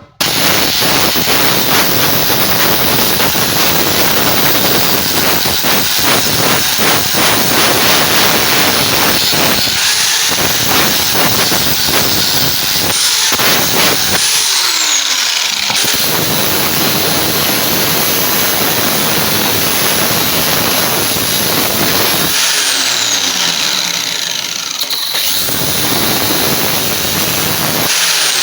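A power tool running against the steel of a knife blade: a loud, continuous grinding hiss. It starts abruptly and eases in the low end a few times as the pressure on the blade changes.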